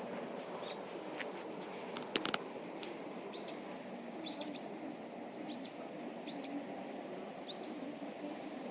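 A small bird giving short, high chirps about once a second over steady low background noise. Three sharp clicks about two seconds in are the loudest sound.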